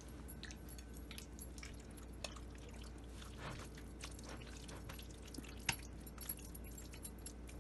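A metal spoon stirring chicken pieces into a thick yogurt-and-spice marinade in a bowl: faint, with a scatter of light clicks as the spoon knocks the bowl.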